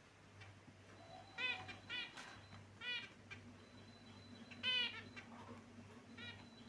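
Pet finches giving short nasal calls, five in all, the loudest about two-thirds of the way through, over a faint steady hum.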